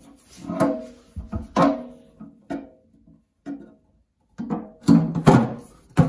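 Background music of plucked string notes, with a louder run of notes near the end.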